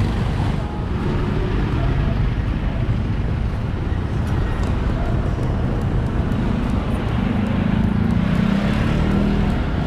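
Street traffic: engines of passing motorcycles and vehicles, with a steadier engine hum coming up about seven seconds in.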